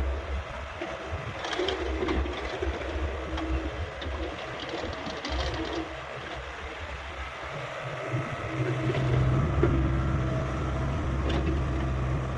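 Hyundai 85A excavator's diesel engine running with a steady low drone, fainter for most of the first part and growing louder about eight seconds in. Scattered short knocks and clanks sound over it.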